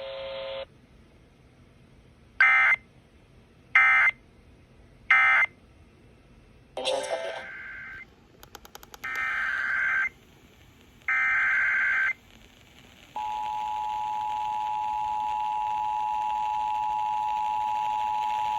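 Emergency Alert System data tones. Three short end-of-message bursts come about a second and a half apart, then three longer, buzzing digital header bursts for the next alert. About 13 seconds in, the steady two-tone EAS attention signal begins and holds.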